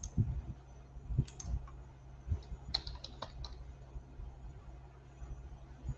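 Brief typing on a computer keyboard: a couple of clicks about a second in, then a quick run of about five clicks around three seconds in, with a few low dull thumps.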